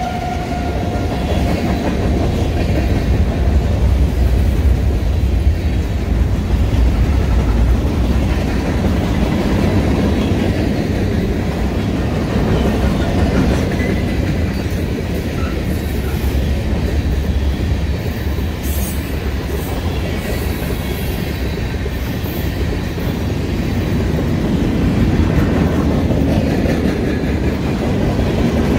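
Freight train cars rolling past close by: a steady rumble of steel wheels on rail with rhythmic clickety-clack over the rail joints. A few brief high wheel squeals come about two-thirds of the way through.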